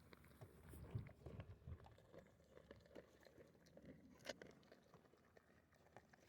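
Near silence, with faint scattered rustles, small clicks and a few soft thumps.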